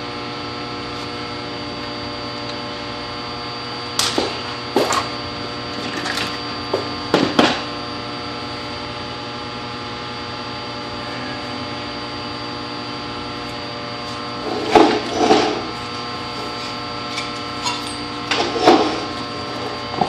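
Steady electrical hum made of several fixed tones, with a few sharp knocks and a couple of louder rustling bursts from wiring hardware being handled.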